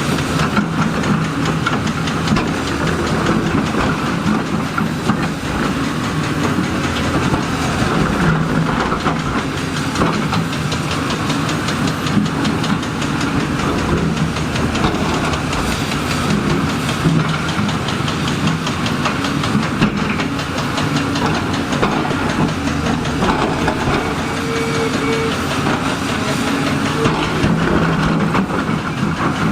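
Diesel engine of heavy tracked earthmoving machinery running steadily under load, with many small metallic clanks and knocks throughout.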